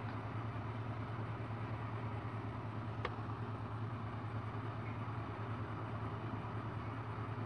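Steady low hum with background hiss, the room tone of a recording setup, with a single faint click about three seconds in.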